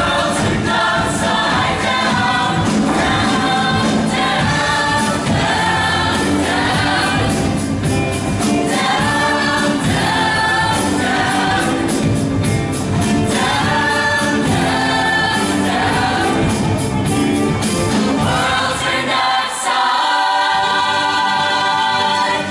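Mixed-voice show choir singing in full harmony with instrumental accompaniment. Near the end the low accompaniment drops away and the choir holds one long sustained chord.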